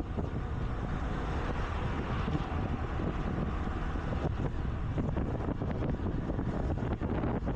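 Steady wind buffeting on the action camera's microphone of a moving scooter, over the scooter's engine and road noise.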